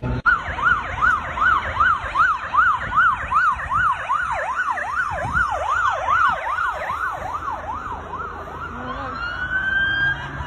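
Emergency vehicle siren in fast yelp mode, sweeping high-low about three times a second, then switching near the end to a slower rising wail, with road traffic beneath.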